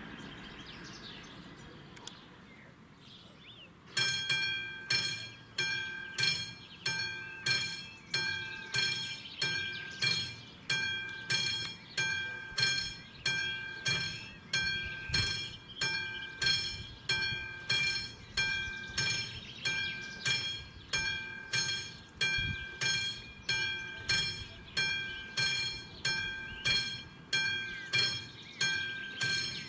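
Level-crossing warning bell of an AŽD 71 signal, a classic mechanical bell, striking at a steady pace of about one and a half strikes a second, each strike ringing and fading. It starts about four seconds in and sounds while the red warning light is lit: the crossing is warning of an approaching train.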